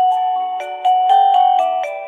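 TeckNet WA888 wireless doorbell playing one of its electronic chime tunes: a quick melody of bell-like notes, about four a second, sounded in chords.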